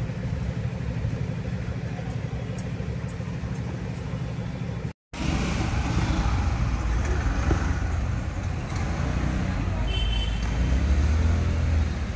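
A motor vehicle engine idling at close range, a steady low rumble. About five seconds in, the sound cuts out for an instant, and then louder street traffic noise follows, with engines running.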